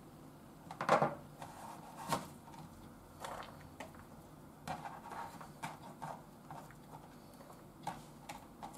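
Kitchen handling sounds at a cutting board: a couple of sharper knocks in the first few seconds as the kitchen knife is put down, then light irregular taps and scrapes of hands gathering chopped vegetables on the board.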